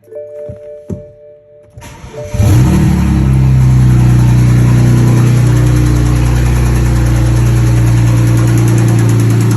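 A BMW E90's single-turbo inline-six (Precision 6762 turbo) is cranked and fires about two seconds in, after a few clicks and a short electronic tone. It then settles into a loud, steady idle with the engine knock the car is being checked for.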